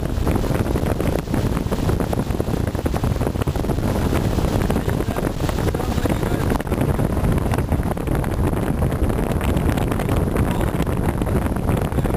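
Heavy wind buffeting the microphone aboard a motorboat under way, over the steady rush of the boat moving across the lake.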